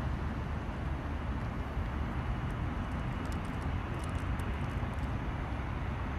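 Steady low outdoor rumble of background noise, with a few faint ticks about three to four and a half seconds in.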